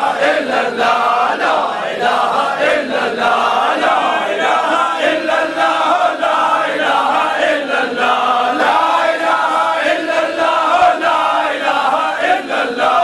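A group of men chanting zikr (dhikr) together, many voices in one continuous chant.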